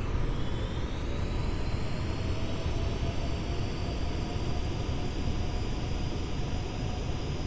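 Airbus A380's four turbofan engines running with a whine that rises in pitch over the first few seconds and then holds steady, over a heavy rumble of wind on the microphone.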